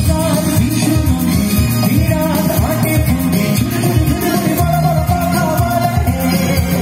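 Live band music with a singer, loud and steady, with a strong bass line.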